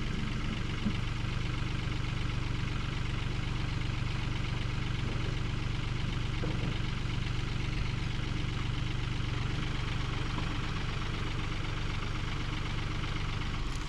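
An engine running steadily at a constant idle, with no change in speed or load.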